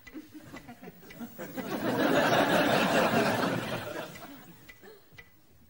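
Studio audience laughing, a swell that builds and fades over about three seconds, with a faint ticking about twice a second before and after it.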